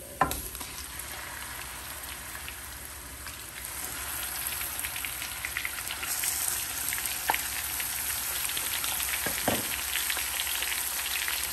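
Raw keema (minced meat) dropped by hand into hot oil and browned ginger-garlic paste in a wok, sizzling and crackling. The sizzle grows louder a few seconds in as more meat goes into the pan. There is one sharp knock right at the start.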